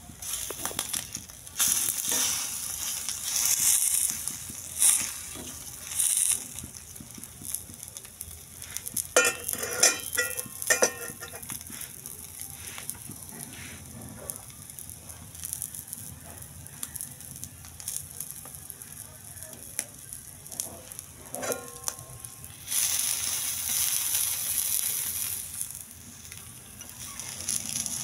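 Egg frying in oil on a flat griddle, sizzling steadily, with louder bursts of sizzle a couple of seconds in and again near the end. A steel spoon scrapes and clinks against the griddle in a run of sharp clicks around ten seconds in.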